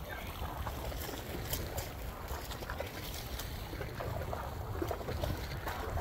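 Wind rumbling on the microphone over small waves lapping and splashing against the rocks of a seawall, with scattered light splashes.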